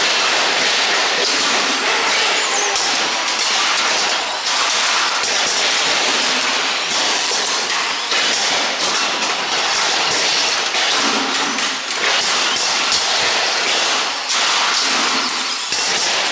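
Radio-controlled stock cars racing on an indoor oval: a steady whir of small motors and tyres, with frequent knocks and clatters as the cars bump each other and the barrier.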